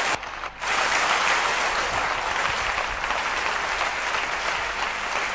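A large audience clapping steadily. The applause drops away briefly just after the start, then carries on evenly.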